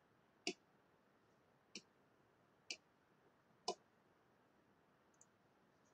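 Computer mouse button clicking four times, about a second apart, in near silence, with a much fainter tick near the end.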